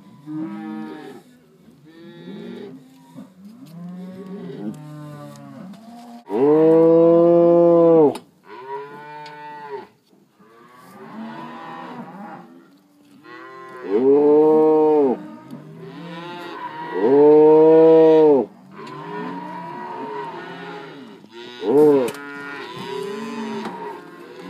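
Several calves mooing and bawling in overlapping calls. Three long, loud calls stand out about seven, fourteen and seventeen seconds in, with many quieter calls between them.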